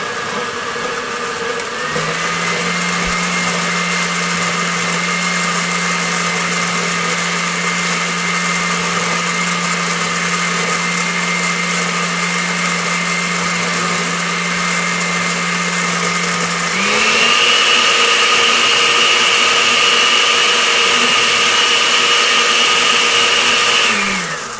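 Countertop blender motor running steadily, blending fresh corn kernels with water. About two-thirds of the way through it jumps to a higher, louder speed, then is switched off and winds down near the end.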